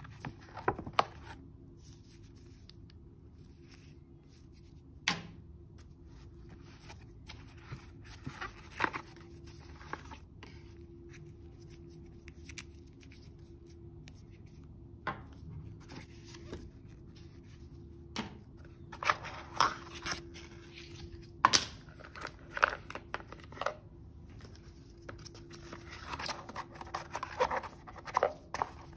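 Cardboard and paper packaging being handled by gloved hands: scattered taps and clicks as a watch band and a film-wrapped watch are lifted from a cardboard insert, then bursts of rustling near the end as a long cardboard box is opened, over a faint steady hum.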